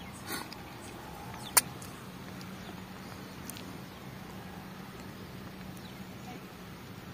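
Quiet outdoor ambience: faint high chirps of small birds over a steady low hum, with one sharp click about a second and a half in.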